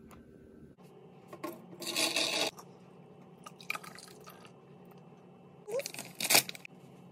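Kitchen handling noises in short bursts: food packaging rustling and being opened, and cashews rattling into a plastic blender cup. The loudest burst comes about six seconds in.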